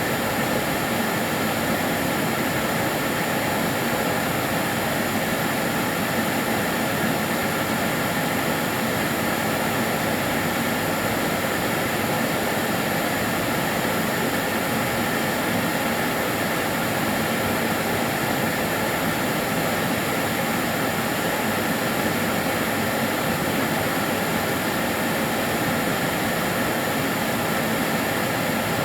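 Kärcher DS 6 Premium water-filter vacuum cleaner running continuously: an even rushing hiss of motor and airflow with a faint high whine, unchanging throughout.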